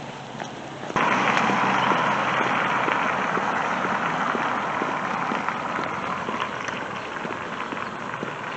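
A flock of small birds chattering together in a bush, a dense twittering mass of many overlapping calls that starts abruptly about a second in and slowly fades.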